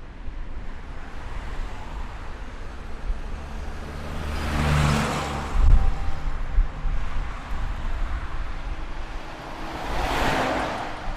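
Road traffic with a steady rumble and tyre noise. Two vehicles pass close by, one about five seconds in and another about ten seconds in, each swelling and then fading away.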